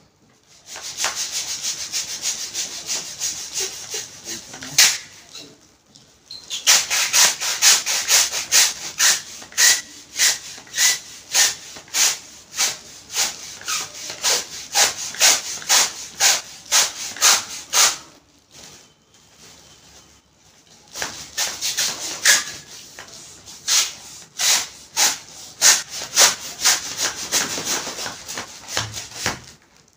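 Manual hand pump inflating a foil balloon: rhythmic pump strokes, each a short rush of air, about two a second, in three runs broken by brief pauses.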